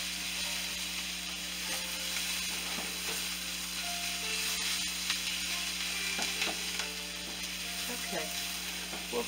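Chopped onion and green pepper sautéing in a frying pan: a steady sizzling hiss, with light scrapes and taps of a wooden spatula stirring the vegetables against the pan.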